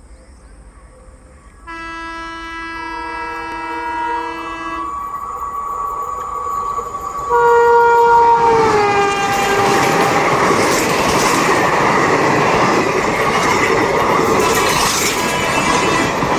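Indian Railways electric locomotive horn sounding for about three seconds, then sounding again as the train arrives, its pitch dropping as it passes. The passing passenger train follows with a loud rush of wheel and coach noise and clickety-clack over the rail joints.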